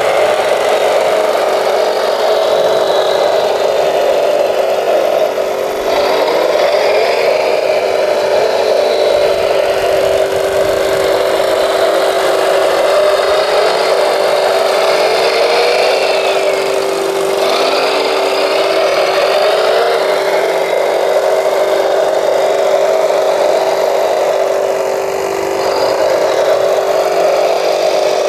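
Scale RC Volvo L250G wheel loader's electric motors whining, gliding up and down in pitch as it drives and works its bucket, over a steady drone.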